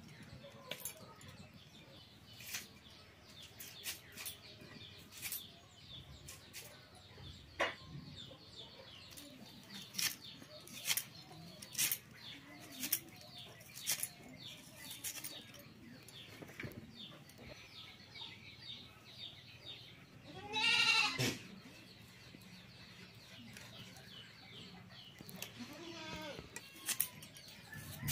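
A red onion being sliced on a boti, an upright fixed kitchen blade, giving sharp irregular snapping clicks as it cuts through the onion layers. About two-thirds in, a goat bleats once loudly, and small birds chirp faintly throughout.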